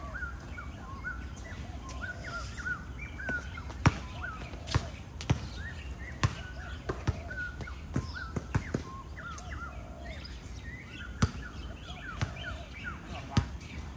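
A basketball bouncing on a hard court, sharp irregular knocks every second or so, mixed with many short chirping squeaks of sneakers on the floor.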